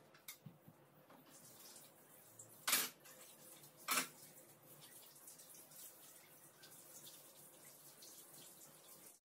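Faint sounds of working at a kitchen sink: a low, even wash of water with two sharp knocks, about two and a half and four seconds in.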